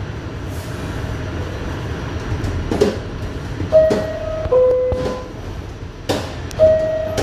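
New York City subway train standing at an elevated station, rumbling steadily, with a few sharp clanks. A two-note falling chime, a higher note then a lower one, sounds about four seconds in and again near the end: the door chime that warns the doors are about to close.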